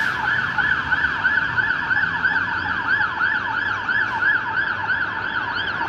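Fire engine's siren sweeping rapidly up and down in pitch, about three sweeps a second, over a faint engine and road rumble. It fades slightly near the end as the appliance drives away on an emergency call.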